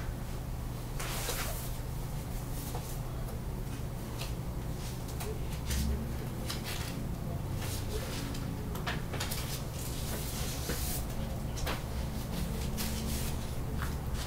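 Dry-erase marker writing on a whiteboard: short scratchy strokes coming at irregular intervals over a steady low hum.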